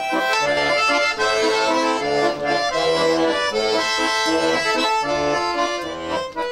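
Tula-made button accordion (bayan) playing solo, chords over a repeating bass line: the instrumental introduction to a Mordovian folk song, before the voices come in.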